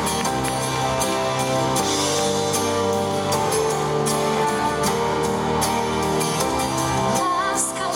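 Live pop band playing an instrumental passage: acoustic and electric guitars, keyboard and drum kit keeping a steady beat.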